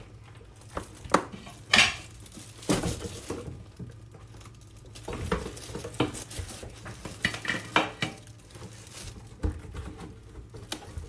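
Metal oyster knife prying at small oysters, clicking and scraping against the hard shells in irregular sharp clicks and short rasps, the loudest about one and two seconds in.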